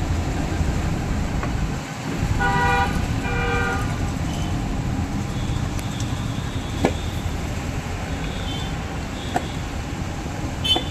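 A vehicle horn honks twice in quick succession, each honk about half a second, over steady traffic rumble. A couple of light sharp knocks follow later.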